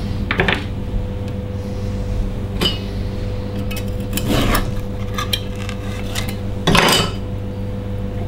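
Hard knocks and scrapes from a potter's wheel as the bat holding a freshly thrown bowl is gripped and lifted off the wheel head, about four of them, the loudest near the end, over a steady low hum.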